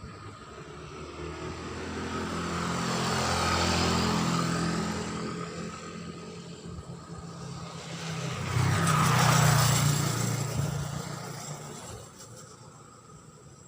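Two engine vehicles pass by one after the other. Each grows louder, peaks and fades; the second, about nine seconds in, is the louder.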